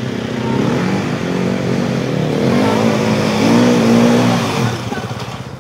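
Dirt bike engine revving up and down as it climbs a forest trail toward the microphone. It is loudest about four seconds in, then drops back near the end.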